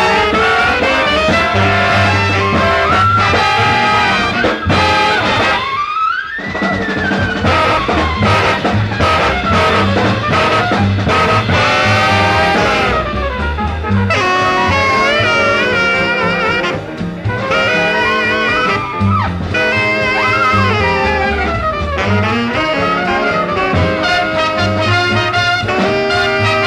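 Big band swing jazz: trumpet, trombone and saxophone sections playing together over drums and bass. About six seconds in the low rhythm briefly drops out under a rising glide, then the full band comes back in.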